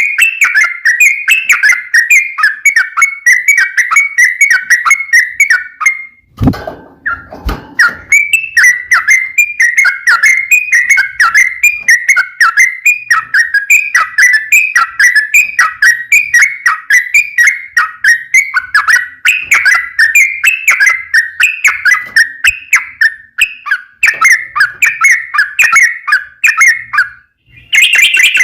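Yellow-vented bulbul (trucukan) singing a long, continuous run of quick repeated chirping phrases. The song breaks briefly about six seconds in, where two or three low knocks are heard, then resumes.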